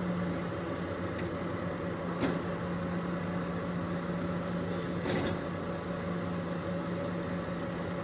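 Vehicle engine idling with a steady hum, with a couple of brief knocks about two and five seconds in.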